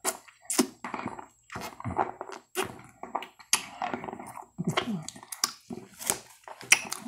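Mouth sounds from sucking a Charms Blow Pop lollipop, close to a clip-on microphone: a quick, irregular string of wet smacks, slurps and clicks.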